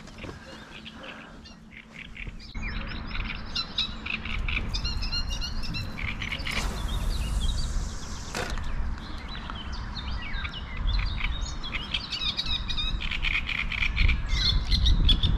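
Songbirds singing in a dense chorus of quick, high chirps and trills, with a low rumble that grows toward the end.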